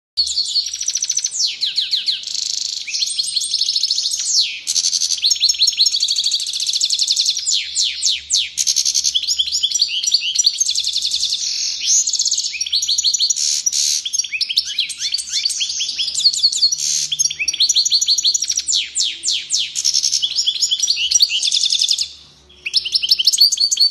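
European goldfinch singing a long, unbroken run of fast twittering trills and buzzy, sliding notes, pausing briefly about 22 seconds in.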